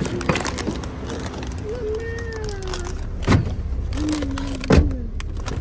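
Low, steady road rumble inside a moving car's cabin, with a high voice making long, drawn-out sliding sounds. Two sharp knocks come past the middle, about a second and a half apart.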